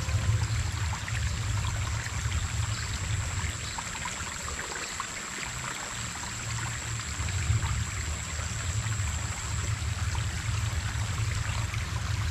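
Shallow stream water running and trickling over stones, a steady crackling wash with a low rumble underneath and a thin steady high tone.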